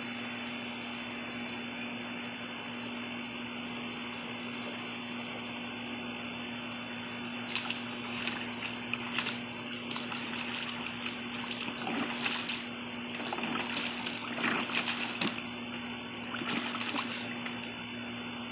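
Water splashing and sloshing in a plastic kiddie pool as a Great Pyrenees steps and paws about in it. The splashes are scattered and irregular and begin about a third of the way in, over a steady low hum.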